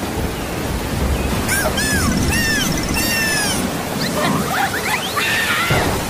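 Steady hiss of rain falling onto wet mud. From about one and a half seconds in, high squeaky tones glide up and down in a quick string, and more squeaky chirping comes near the end.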